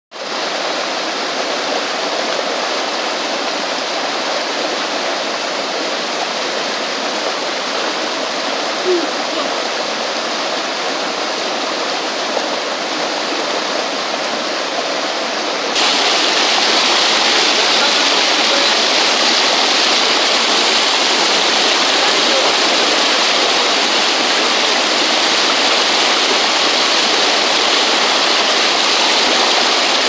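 Mountain stream running high after rain, rushing and splashing over boulders in small cascades: a steady rush of water. About sixteen seconds in it cuts to a closer cascade and becomes louder and brighter.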